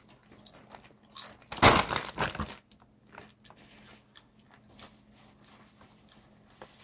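Someone eating pizza: close, crunchy bites and chewing, loudest in a cluster of crunches about two seconds in, followed by faint scattered clicks.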